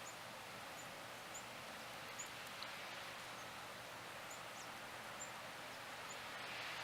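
Steady hiss of a heavy snowstorm, with a few faint, short, high chirps scattered through it.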